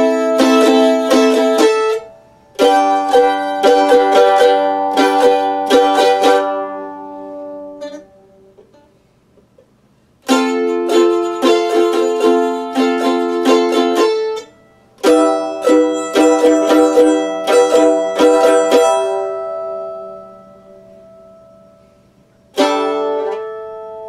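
Mandolin strummed in short phrases of quick chord strokes, each phrase ringing out before a pause of a second or two, about five phrases in all.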